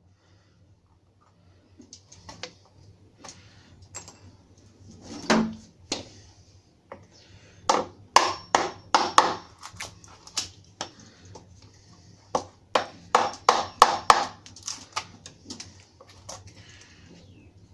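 Irregular sharp knocks and taps of joinery work, coming in two quick runs about eight and thirteen seconds in, over a faint steady hum.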